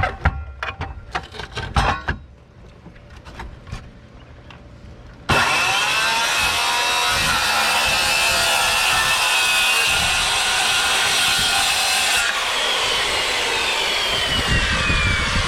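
A few knocks, then about five seconds in a power saw starts abruptly and cuts steadily through the boat's plywood floor, with a falling whine in the last few seconds.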